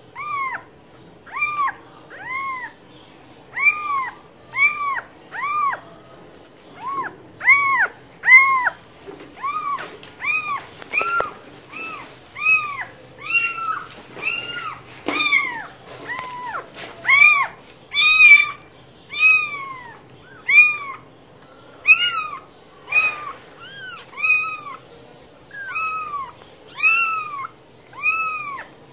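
A cat meowing over and over: short, high-pitched meows, each rising and then falling in pitch, about one a second.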